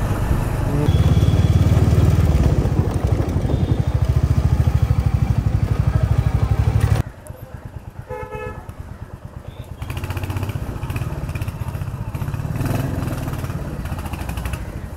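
Royal Enfield Hunter 350's single-cylinder engine running while being ridden, with a steady low pulse. About seven seconds in, the sound cuts off suddenly to a quieter engine sound, and a vehicle horn gives a short toot about a second later.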